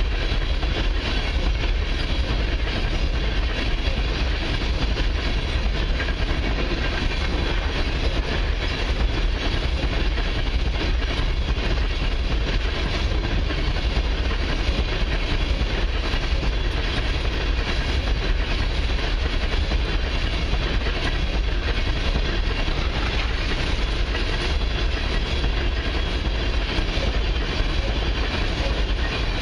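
A long freight train of empty crude-oil tank cars rolling past steadily and loudly, steel wheels running over the rails with a deep rumble.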